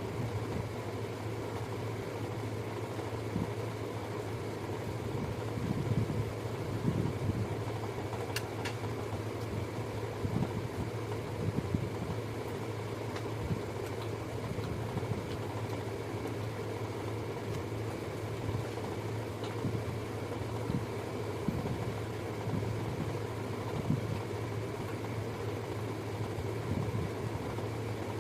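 Steady mechanical hum running on evenly throughout, with small irregular soft knocks over it and one sharp click about eight seconds in.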